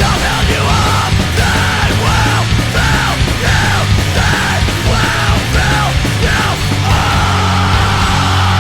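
Loud, distorted heavy metal with yelled vocals. About seven seconds in, the riffing gives way to a held, droning chord.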